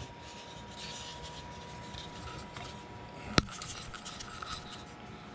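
Light rubbing and scratching as a balsa wood hatch is handled, with one sharp click about three and a half seconds in.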